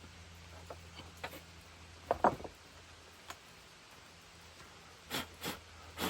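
Small clicks and knocks of tools and chainsaw parts being handled and set down, loudest in a quick double knock about two seconds in, then two short rustles near the end, over a steady low hum.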